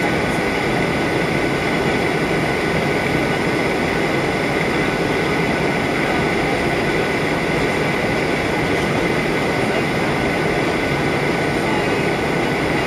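Steady cabin noise of a Boeing 737-800 airliner in cruise, heard inside the cabin: the even drone of its jet engines and the rush of air along the fuselage, with a faint steady high tone running through it.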